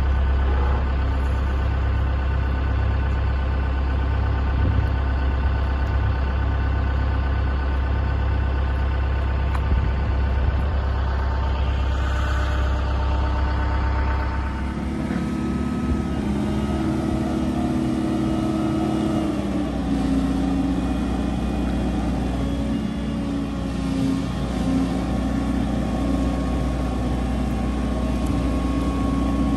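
Heavy engine running steadily with a deep hum. About halfway through, after a cut, a boatyard travel lift's engine runs with a higher, uneven drone while the boat hangs in its slings. The drone drops slightly in pitch a few seconds later.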